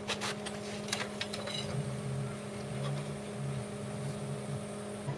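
Arc welding machine switched on and humming steadily, with a few light clicks and taps of metal early on.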